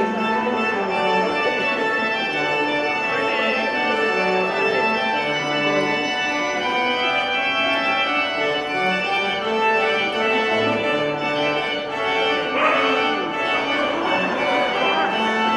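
Organ music: sustained chords over a slowly moving line of low notes.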